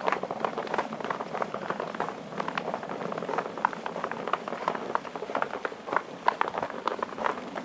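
Footsteps of several people crunching in fresh snow: a quick, irregular run of short crunches.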